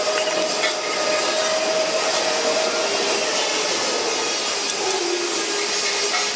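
Steady machinery noise in a factory workshop: an even hiss with a faint hum under it.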